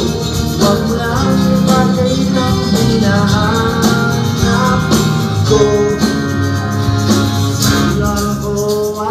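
Band music: singing over guitars and a steady rhythm section, playing without a break.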